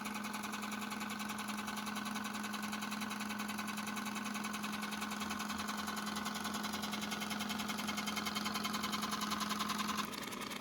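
Eumig Mark 610D Dual 8 film projector running: a steady hum with a fast, even clatter of the film-advancing mechanism. Near the end the hum cuts out and the running sound turns a little quieter.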